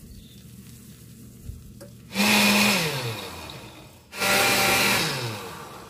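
Countertop blender pulsed twice, blending frozen fruit and greens. Each burst lasts about a second, and the motor's hum slides down in pitch as it spins down after each pulse.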